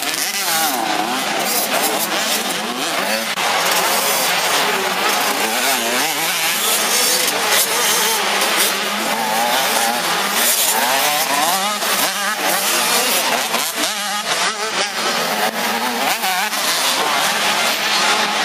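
Several 85 cc two-stroke motocross bikes racing, their engines revving up and down in pitch, one over another.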